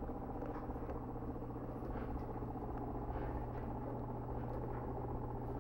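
A steady low hum made up of several fixed tones, with a few faint soft clicks.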